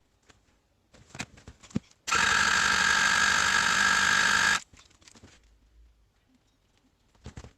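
Honda MC14E inline-four motorcycle engine spun over on its electric starter for about two and a half seconds during a compression test: a steady, fast whir that cuts off suddenly. Light handling clicks and knocks come before and after it.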